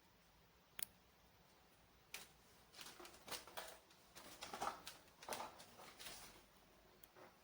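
Faint handling noises: a sharp click about a second in, then a few seconds of rustling and scraping, and another light click near the end.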